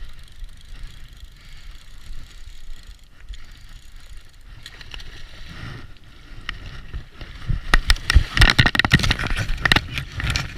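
Willow branches scraping and crackling against the camera, a dense run of rustles and knocks that is loudest over the last few seconds, over a low rumble of handling noise.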